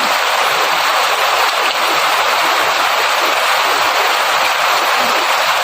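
Steady rain falling in a forest, an even, dense hiss with no let-up.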